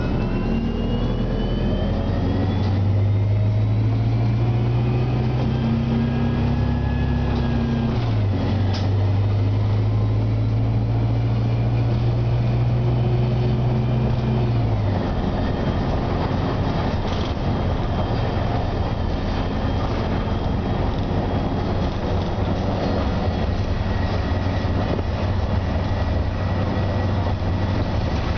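Interior of a 2003 Orion VII CNG bus under way. Its Detroit Diesel Series 50G natural-gas engine pulls hard through its Voith DIWA automatic transmission, with rising whines in the first few seconds and an upshift about eight seconds in. The engine note drops away around fifteen seconds in as the bus comes off the power, leaving steady road and cabin rumble.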